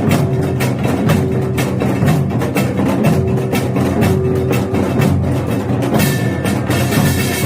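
Samulnori percussion ensemble playing: a fast, dense run of Korean drum and gong strikes over steady ringing tones.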